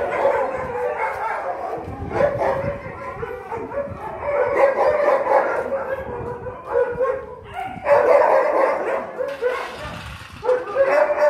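Several kennelled dogs barking and whining together, their drawn-out calls overlapping almost without a break, with a few short lulls.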